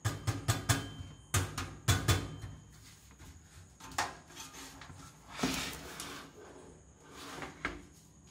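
Thin steel I/O shield and PC case being handled. A quick run of light metallic clicks and taps comes in the first couple of seconds, then a few scattered taps and a brief scuffing sound about five and a half seconds in.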